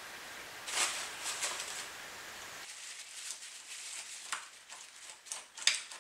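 Scattered light clicks and rustles of small bolts and a hand tool being handled during reassembly of an outboard motor. A steady hiss sits underneath and stops abruptly a little under halfway through.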